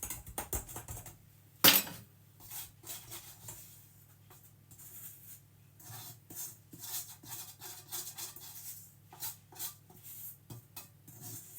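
Kitchen handling noises: light clicks, knocks and scraping of utensils and containers, with one sharper knock nearly two seconds in, over a faint steady low hum.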